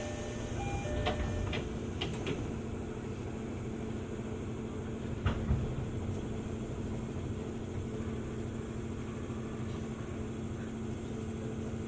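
Onboard sound of a JR 205 series 600 electric train: a steady rumble and hum throughout, with a couple of thumps about five seconds in. A few short electronic tones sound in the first second.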